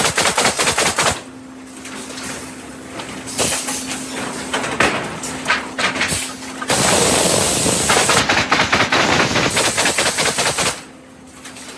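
Woodpecker pallet nailer running, its pneumatic nail guns firing in rapid bursts of sharp clicks. A fast volley about the first second gives way to a steady hum with scattered shots, and then to a loud dense stretch of firing and noise that lasts about four seconds and stops near the end.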